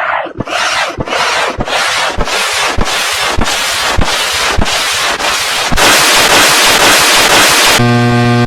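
A harsh rushing noise chopped into a rapid stutter, repeating a little under twice a second, then running on unbroken as loud continuous noise. Near the end a short buzzy electronic tone takes over and cuts off abruptly.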